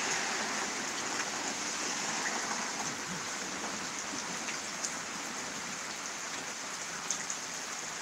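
Steady rain falling, an even hiss with a few faint drip-like ticks.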